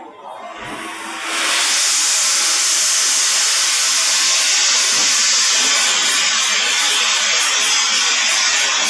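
Oxy-fuel cutting torch on a CNC profile cutting machine, its oxygen jet hissing loudly and steadily as it burns through a steel plate. The hiss comes in about a second in and holds even after that.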